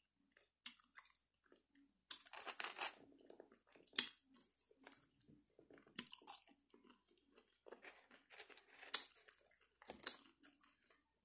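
A person biting and chewing French fries: irregular crunchy chews with a few sharp mouth clicks.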